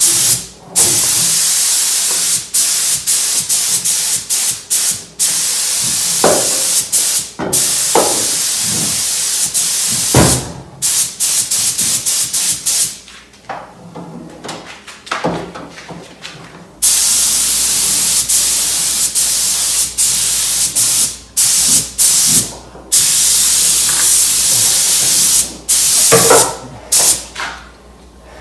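Paint spray gun spraying epoxy primer in repeated trigger-pulls: loud hissing passes that start and stop abruptly, with a longer pause around the middle and a few short knocks in between.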